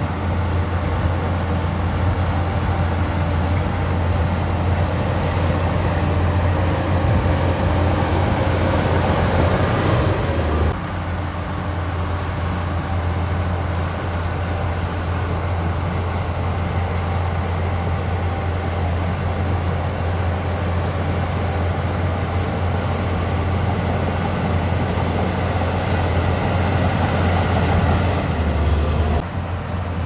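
Shantui crawler bulldozer's diesel engine running steadily under load as it pushes a pile of soil, with a deep low drone; the sound drops off briefly about ten seconds in and again shortly before the end.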